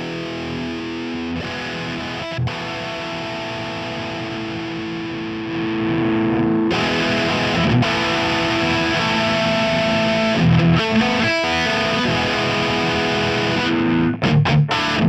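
Electric guitar played through a Line 6 UX2 interface into GearBox's Brit J-800 amp model with heavy distortion: long held notes and chords that get louder and brighter about six seconds in, with choppier playing near the end.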